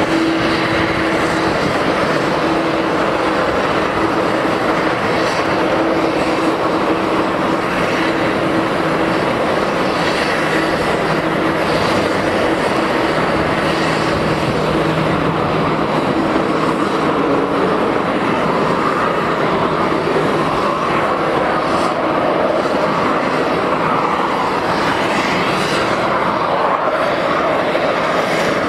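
Steady jet aircraft engine noise on an airport apron. A steady hum under it fades out about two-thirds of the way through.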